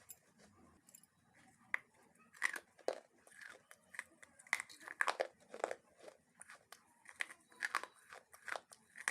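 Close-up crunching of crisp food being bitten and chewed: a run of irregular sharp crackles, sparse at first and louder and denser from about two and a half seconds in.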